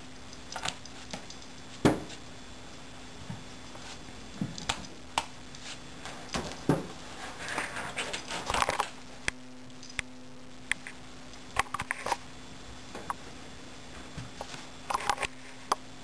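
A cat batting and pawing at a magnet on a refrigerator door: irregular taps, clicks and knocks of paw and magnet against the door, some in quick clusters, over a faint steady low hum.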